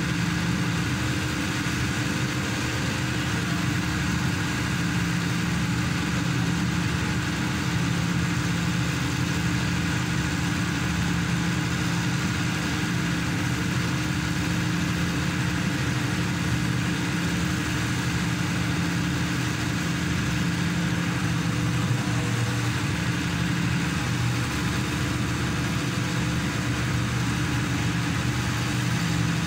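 Diesel engine of a hydraulic static pile driver running steadily, with an even, unchanging hum.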